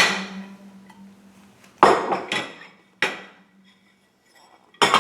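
Dishes and cutlery clinking and knocking as they are taken out of a dishwasher and set down: a clatter at the start, single knocks with a short ring about two and three seconds in, and another clatter near the end.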